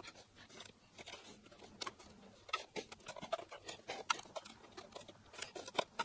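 Faint light clicks, taps and rustles of a balsa-and-ply model aircraft elevator being pushed by hand onto its pinned hinges along the tailplane, with the ticks more frequent in the second half.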